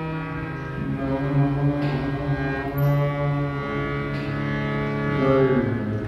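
Harmonium playing a slow devotional melody, reed notes held for a second or more and moving to new pitches several times over a steady drone.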